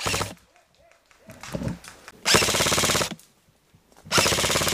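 Airsoft rifle firing in full-auto bursts, a rapid even rattle of shots: a short burst at the start, a longer one of almost a second about two seconds in, and another near the end.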